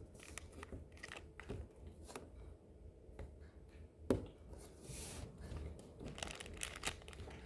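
Faint handling noises: scattered light clicks, taps and rustles, with one sharper click about four seconds in.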